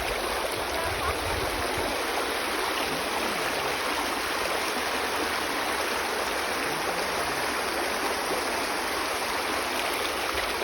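Steady, even rush of flowing water from a rocky stream or waterfall.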